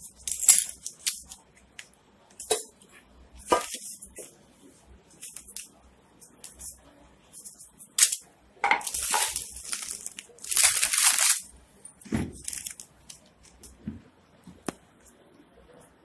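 Stainless steel vessels being handled and set down on a newspaper-covered floor: scattered metallic clinks, a sharp one about eight seconds in, with a longer stretch of rustling handling noise around ten to eleven seconds.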